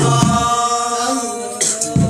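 A group of men chanting devotional Arabic verses (dibaan, sholawat) together in one sustained sung line, with hand-struck frame drums (rebana) beating at the start and again near the end.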